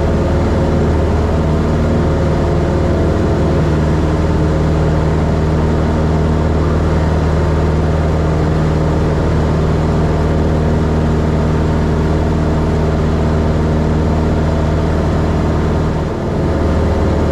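Cessna 172's piston engine and propeller running steadily at climb power, heard from inside the cabin, with a brief dip about sixteen seconds in.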